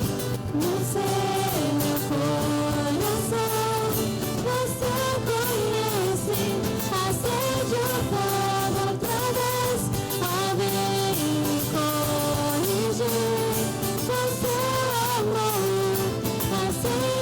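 Live worship music: a voice singing a flowing melody over guitar and drums.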